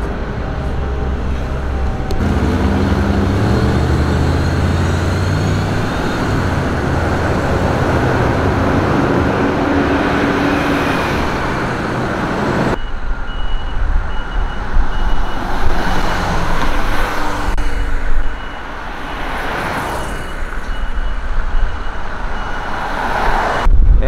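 Road traffic: a motor vehicle engine accelerating, its pitch rising over several seconds in the first half. After a cut about halfway through, steady traffic noise continues with a high beep repeating evenly.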